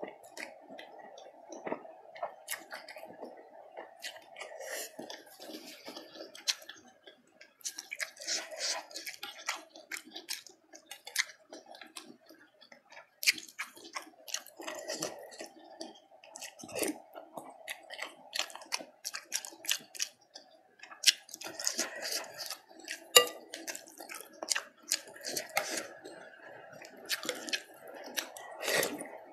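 Close-miked eating sounds: chewing and slurping of meatballs and rice vermicelli in spicy soup, with scattered sharp clicks of a spoon and fork against the bowl.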